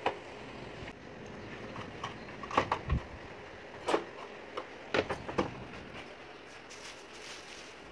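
Scattered clicks and knocks of hands handling a washing machine's control board and plastic control-panel housing while its wire harness connectors are pulled off, over a steady low background hiss.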